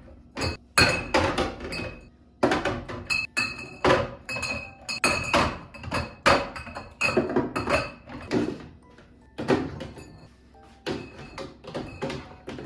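Glass and ceramic kitchenware clinking and knocking as it is handled and set down, many quick strikes in a row, some with a short ringing tone.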